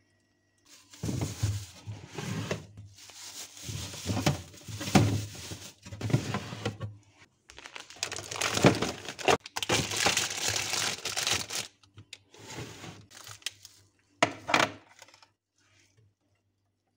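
Plastic bags rustling and crinkling as food is handled and stowed on refrigerator shelves, in irregular bursts with short pauses, stopping a couple of seconds before the end.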